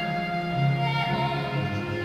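Slow music with long held notes, in a string-like, orchestral style, playing steadily.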